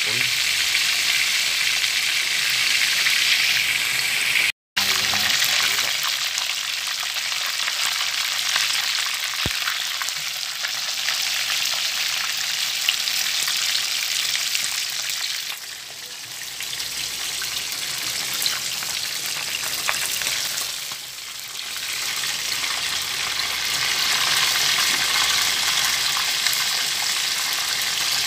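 Whole tilapia shallow-frying in hot oil in a pan: a steady sizzle with dense crackling spatter. It cuts out for an instant about five seconds in and eases off briefly twice in the second half.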